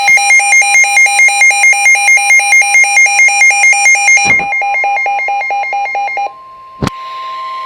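Weather alert radio alarm: a loud electronic beeping that rapidly alternates between pitches, about four to five cycles a second, for about six seconds, then stops. A steady single tone follows, the NOAA Weather Radio warning alarm tone, with a sharp click shortly before it.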